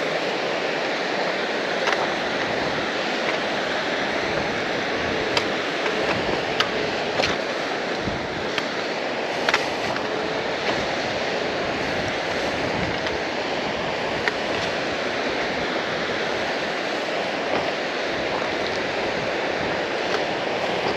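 Rushing water of a mountain stream, a steady even hiss with a few short clicks scattered through it.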